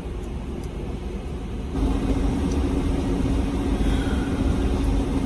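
Road rumble inside a moving car. About two seconds in the sound steps up abruptly and a steady low hum joins it.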